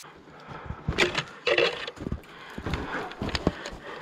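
Footsteps crunching through snow among conifer branches: several irregular crunches and rustles, a fraction of a second to a second apart.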